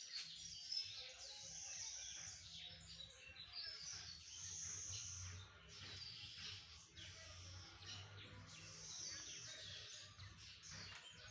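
Faint bird chirps and tweets, with three patches of high hiss, each lasting about a second and a half.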